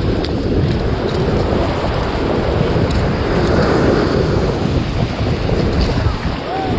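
Steady wind buffeting the microphone over the rush of breaking surf.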